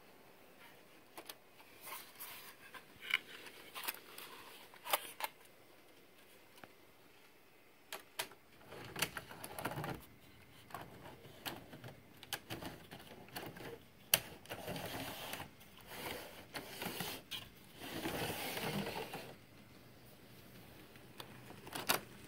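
Model train locomotives running on the layout track, a small electric motor whirring with the wheels clicking and clattering over the rails, broken by irregular sharp clicks and knocks, busiest toward the middle and late part.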